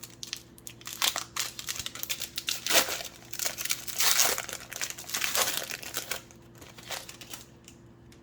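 Foil wrapper of a trading card hobby pack being crinkled and torn open, a run of irregular rustles that dies away near the end.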